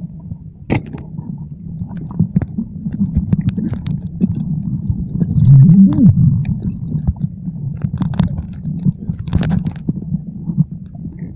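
Muffled low rumble of moving water heard through a submerged camera during a night dive in a river, with scattered clicks and knocks.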